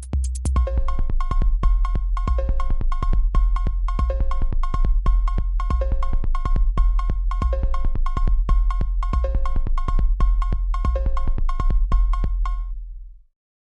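Electronic ringtone music: a drum-machine beat over deep bass with a short synth riff repeating about every second and three-quarters. It stops about thirteen seconds in.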